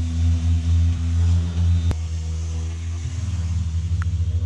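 A steady low machine hum with a faint hiss over it, and a single sharp click about two seconds in.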